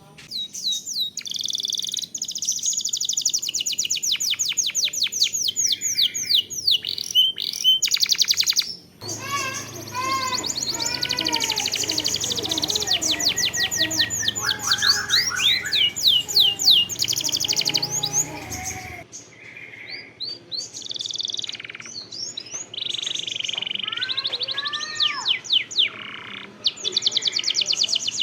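Domestic canary singing a fast, continuous song of rapid trills and long rolls, with brief pauses. Lower, slower arching notes join in underneath for about ten seconds in the middle.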